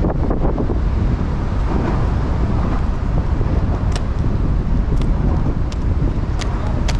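Quad roller skate wheels (Radar Energy 57 mm) rolling over stone paving tiles, a steady low rumble mixed with wind on the microphone. A few sharp clicks come in the second half.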